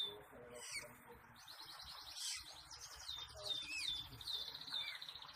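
Oriental magpie-robin (kacer) singing a varied song: clear high whistles that slide down in pitch, mixed with quick rattling trills.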